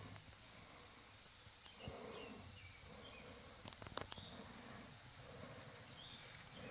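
Quiet outdoor background with faint, scattered bird chirps and a few sharp little clicks about four seconds in.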